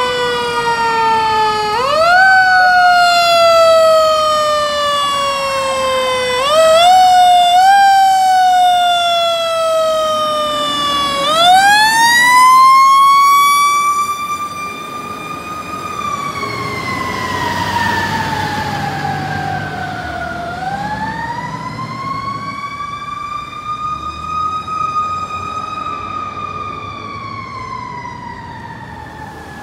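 Fire engine siren wailing. The pitch rises quickly and falls slowly: several short rises in the first half, then two long rising-and-falling wails. It grows quieter from about halfway through as the truck drives away.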